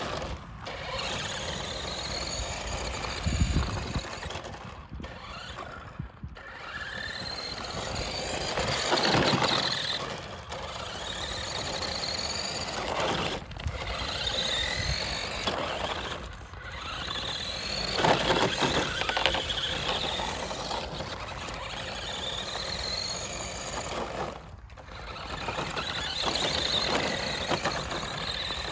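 Battery-powered 1:10 Revell Control Desert Rat RC car's electric motor whining as it drives, rising and falling in pitch in repeated runs of a few seconds with brief breaks between them. The throttle has no proportional control, so each run is a full-throttle burst forward or in reverse.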